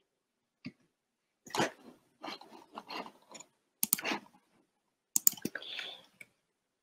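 Faint, irregular short clicks and rustles close to a microphone, with no voice.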